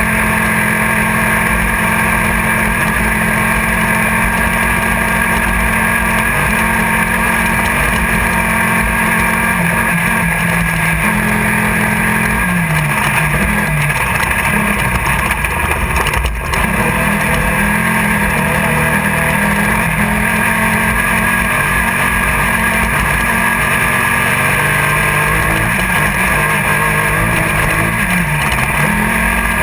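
Cockpit sound of a Class 1600 off-road race buggy's air-cooled 1600 cc VW engine running hard, its pitch rising and falling as the driver works the throttle, under steady wind and rattle noise. The sound dips briefly once, about halfway through.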